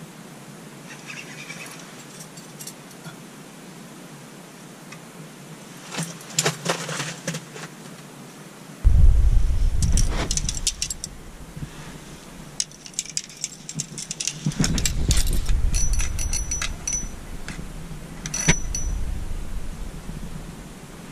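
Handling noise from the camera and fishing gear being moved around: scattered light clicks and rattles, and two longer stretches of low rumbling bumps, the first starting abruptly about nine seconds in.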